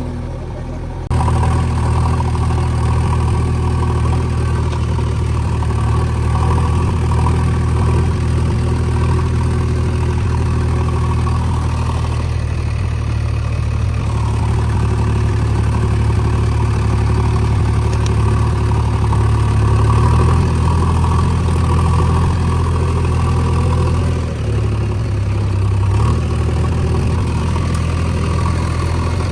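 JCB 3DX backhoe loader's diesel engine running steadily. It gets suddenly louder about a second in and dips briefly a few seconds before the end.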